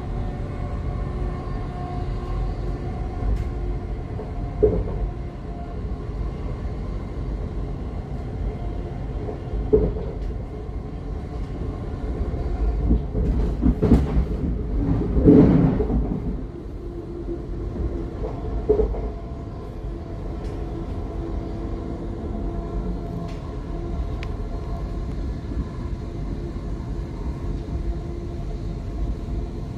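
Inside a Class 700 electric train at about 60 mph: a steady rumble of wheels on rail under a steady hum. A few single knocks come through, and there is a louder stretch of a couple of seconds about halfway through.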